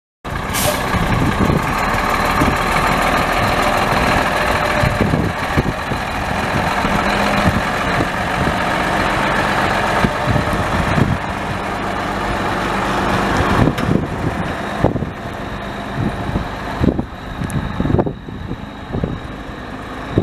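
Cummins 8.3-litre six-cylinder turbo diesel of a 1993 Ford L8000 yard truck running steadily, with uneven low thumps over it.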